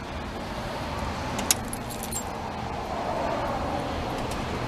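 Keys jangling on the key fob of a 2005 Dodge Grand Caravan, with one sharp click about a second and a half in and a few lighter ticks after it, over a steady low hum.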